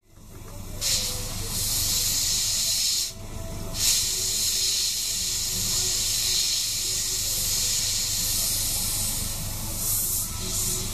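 Gravity-feed airbrush hissing as it sprays paint, stopping briefly about three seconds in and then spraying steadily again. A steady low hum lies underneath.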